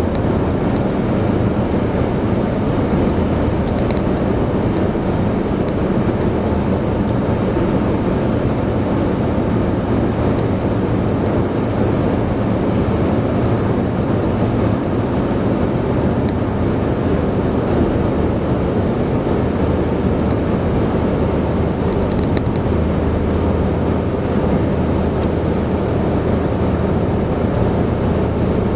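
Steady road noise inside a car cruising at highway speed: a low drone from the engine and tyres on asphalt, with a few faint ticks.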